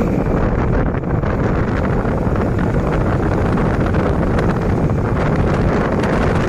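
Loud, steady wind noise buffeting the microphone on a Kanuni Reha 150 scooter ridden near top speed, with the scooter's engine running underneath.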